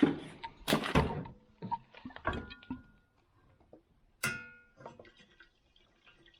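A run of clicks and knocks from things being handled, then one ringing metal clank about four seconds in.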